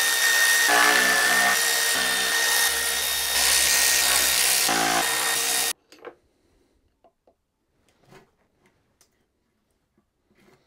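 A power drill/driver runs steadily with a high whine for about six seconds, spinning out the sump bolts, then cuts off sharply; a few faint knocks and clinks of handling follow.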